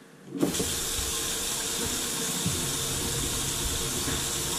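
Bathroom sink faucet turned on about half a second in, then water running steadily from the spout into the basin and down the open drain.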